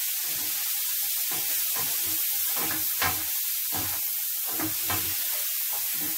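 King prawns sizzling in a frying pan with a steady hiss, while a wooden spoon stirs them, scraping and knocking against the pan every half second or so.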